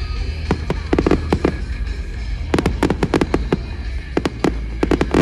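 Aerial firework shells bursting in quick clusters of sharp bangs and crackles: a cluster about a second in, another through the middle, and another near the end, over a steady low rumble.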